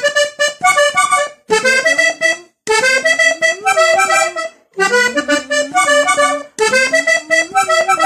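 Diatonic button accordion playing a vallenato melody in short phrases of several notes each, with brief breaks between the phrases.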